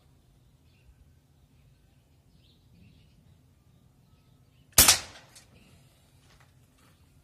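A single shot from a Barra 1866 Cowboy CO2-powered lever-action air rifle: one sharp crack about two-thirds of the way through that dies away quickly, followed by a much fainter click about half a second later.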